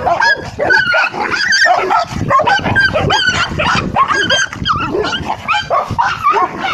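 Tibetan mastiff puppies play-fighting, with a rapid, overlapping run of short high-pitched yelps and whines.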